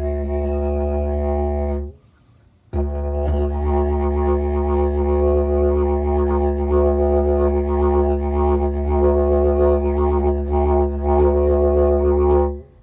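Didgeridoo drone with a strong low fundamental and a rich stack of overtones, played in the 'back wave' style: force pushed into the back note while the main note is kept at a low hum. It breaks off about two seconds in, starts again under a second later and then holds steadily until just before the end.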